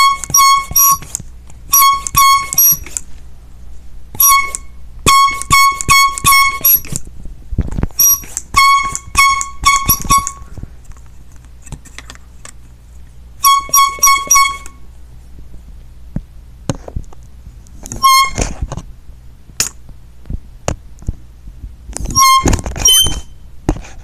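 Handheld air horn blown in many short, loud blasts of one high, shrill tone. The blasts come in bursts of two to six, with pauses of a few seconds between bursts and a few handling knocks in the gaps.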